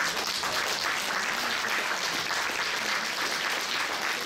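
Audience applauding in a hall, the clapping starting all at once and holding steady.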